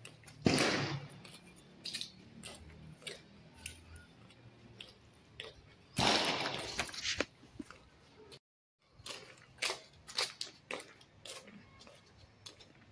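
Footsteps on brick paving, a run of short sharp clicks about two a second, with two louder rushes of noise about half a second in and about six seconds in.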